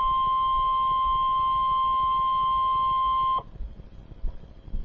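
Emergency alert warning tone for a severe thunderstorm warning: one long, steady, loud electronic tone that cuts off abruptly about three and a half seconds in, leaving faint static hiss.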